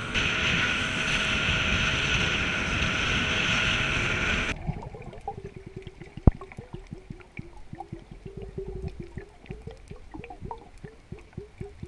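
Motorboat under way, its engine and rushing water steady and loud, cutting off abruptly after about four and a half seconds. Then muffled underwater sound: gurgling water with many small clicks and one sharp knock about six seconds in.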